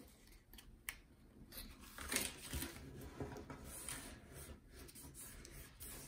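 Faint rustling and light taps of cardstock being handled and pressed flat as a glued tab is stuck down, with a sharper click about a second in.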